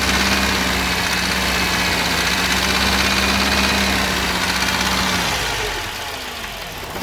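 Mercedes M102 2.0 four-cylinder petrol engine running at raised speed with a knock, then dropping back toward idle about five seconds in. The owner traces the knock to cylinder three and suspects a wrist pin or connecting-rod bearing.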